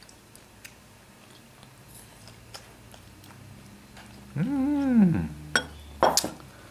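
Quiet room tone, then about four and a half seconds in a single drawn-out vocal sound that rises and falls in pitch, followed by a few sharp clicks.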